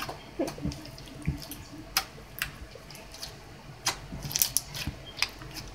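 Nickelodeon mac-and-cheese slime, a glossy slime with small beads in it, being squished and kneaded by hand for ASMR. It gives irregular sharp clicks and pops, bunched together around four seconds in.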